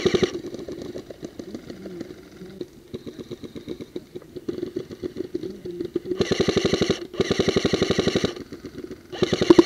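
Airsoft electric guns firing on full auto: rapid rattling bursts of about fifteen shots a second, each with the gearbox motor's whining hum under it. A burst ends just as it starts, scattered single shots follow, then come two long bursts back to back about six seconds in and a short one near the end.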